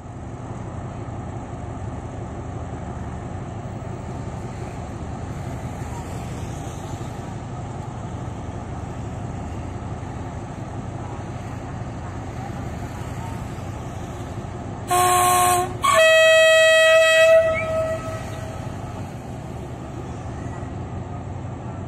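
Alsthom diesel-electric locomotive idling at the platform with a steady low hum. It sounds its horn twice near the end, a short blast and then a longer one of about a second and a half, the signal before pulling out.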